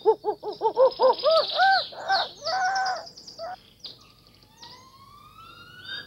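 Jungle animal sound effects: a quick run of hooting calls that climb in pitch over about three seconds, then several rising whistled bird calls.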